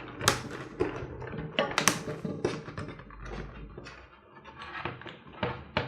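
Hands handling unboxing packaging: an irregular run of sharp clicks, taps and knocks with rustling between them.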